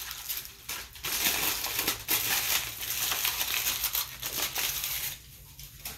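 A wrapper crinkling as a pita sandwich is wrapped in it: a dense run of small crackles that starts about a second in and stops near the end.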